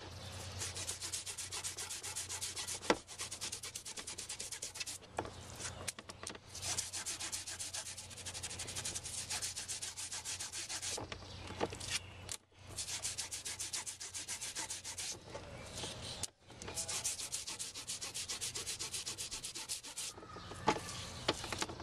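Algae being scraped off an algae turf scrubber screen with rapid back-and-forth strokes, in runs broken by a few short pauses.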